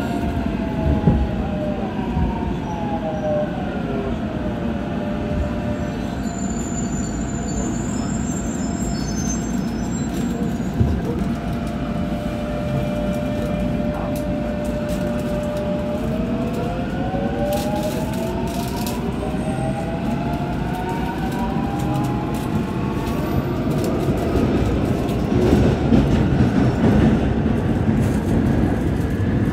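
Alstom IGBT traction inverter whine of an Incheon Metro Line 1 train, falling in pitch as the train brakes for the first few seconds, holding one steady tone, then rising in pitch from about halfway as the train accelerates again. Underneath, a steady rumble of wheels on the track.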